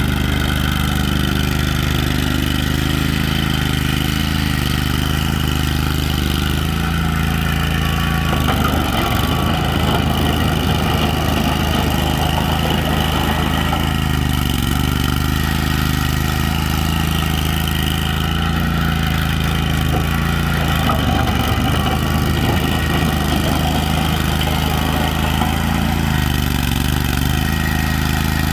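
Engine of a 2003 Lay-Mor LB-30 backhoe running steadily. Its note shifts twice, about a third of the way in and again past two-thirds.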